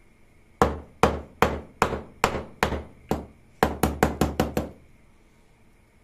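A kitchen knife chopping through a corn cob onto a wooden cutting board, making sharp knocks. First comes a steady run of six knocks about two a second, then after a brief pause a quicker run of about seven.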